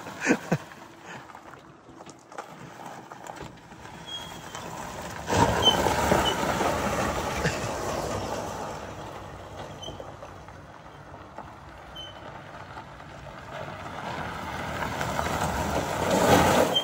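48-volt electric golf cart driving fast over loose gravel: a steady crunching rush of tyres on gravel that swells sharply about five seconds in as the cart comes close, fades, then builds again near the end.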